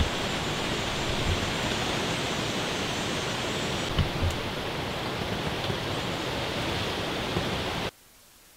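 Steady, even rushing hiss with a few faint ticks and soft low thumps, cutting off abruptly near the end to a much fainter hiss.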